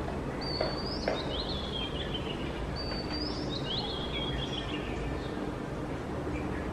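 A bird chirping the same short phrase twice, about two seconds apart: a high note followed by a run of notes falling in pitch, over a steady background hiss.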